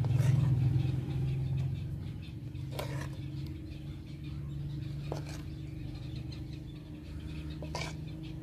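A metal spoon clicking a few times against a steel plate and pan as thick tamarind chutney is spooned over chaat, over a steady low hum.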